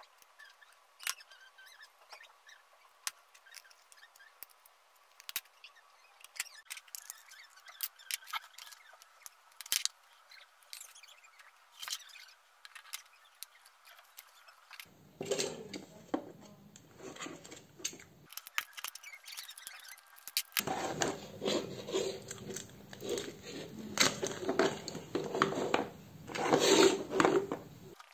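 Pliers and small parts clicking and tapping against a dimmer module. Then come two longer stretches of plastic rubbing and scraping as an orange plastic junction box and a mains cable are handled, the cable being worked through the box, loudest near the end.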